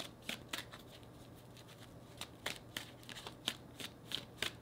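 Tarot cards being shuffled by hand: irregular sharp snaps and flicks as packets of cards are dropped and slapped together. A short flurry at the start, a pause of about a second and a half, then a quicker run of snaps.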